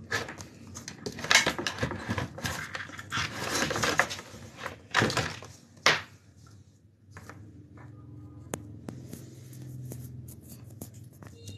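Handling noise close to the microphone as a smartphone is adjusted in its tripod clamp holder: scraping, rubbing and knocks for about six seconds, then a few light clicks and taps.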